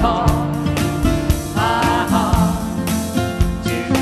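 Live band music: strummed acoustic guitar and electric guitar over drums, with a singing voice carrying the melody.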